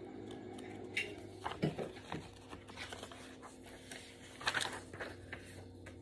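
Quiet room with a faint steady low hum, broken by a few faint taps and rustles from handling.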